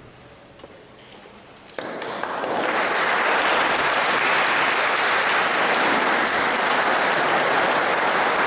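A small congregation clapping. It starts sharply about two seconds in and quickly swells to steady applause.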